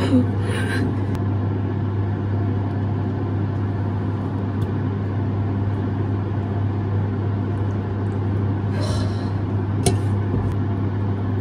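Steady low mechanical hum from a kitchen appliance running, with a short clatter and a click of chopsticks against the pan near the end.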